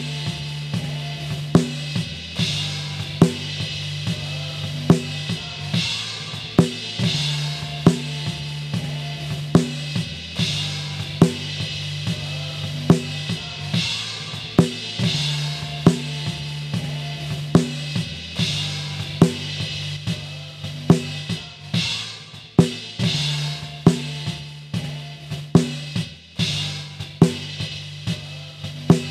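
Snare drum top mic from a live worship band, soloed: sharp snare backbeat cracks about every one and a half seconds. Between them is unwanted bleed from the rest of the kit and band, with cymbal wash, kick and a steady low note. From about two-thirds of the way in, the bleed between hits starts to duck away as a noise gate on the snare channel is dialled in to close between strokes.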